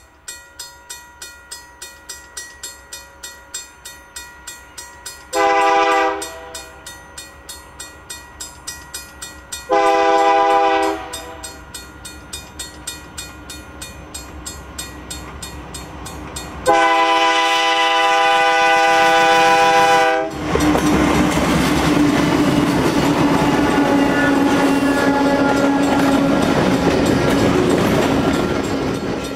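Freight locomotive horn sounding two short blasts and then one long blast over a bell ringing about twice a second, as the train approaches. After the long blast the locomotive passes close by: a loud steady rumble of engine and wheels on the rails as the cars roll past.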